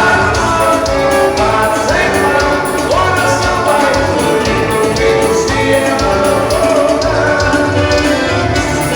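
A band playing music, with singing over a steady, regular beat.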